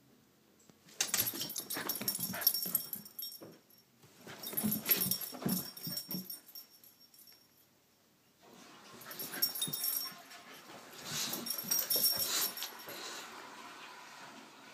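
Border collie and boxer playing on carpeted stairs: dog sounds and scuffling in three bursts, starting about a second in, again around four to six seconds, and from about eight and a half seconds on.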